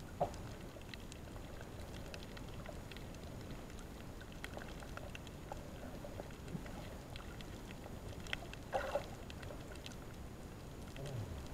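Underwater ambience heard through a submerged camera: a steady, muffled low rush of water with many faint scattered clicks and crackles. A sharp knock comes about a quarter second in, and a couple of louder knocks come near nine seconds.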